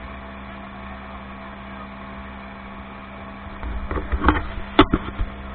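Speedboat engine running steadily at speed, with rushing water and wind noise, and a few sharp loud thumps between about four and five seconds in.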